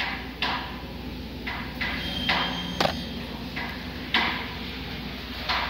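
Workshop noise in a rolling-shutter factory: irregular short bursts of metalwork and tool noise about every second, with one sharp knock about halfway through, over a steady low machinery hum.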